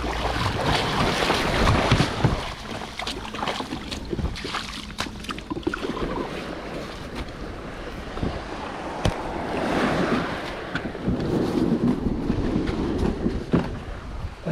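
Sea water sloshing and splashing around a kayak, with wind buffeting the microphone and a few sharp knocks. The water noise swells near the start and again about ten seconds in.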